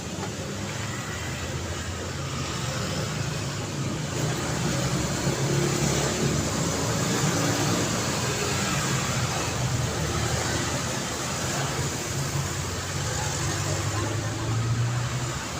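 Road traffic: cars passing steadily with engine drone and tyre noise, growing louder as vehicles go by about a third of the way in and again near the end.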